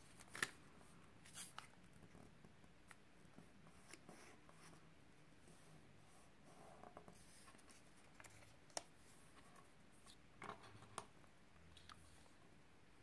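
Faint rustling and crinkling of a paper sheet being folded and unfolded by hand, with a few sharp crackles of the paper, the loudest about half a second in and another near nine seconds.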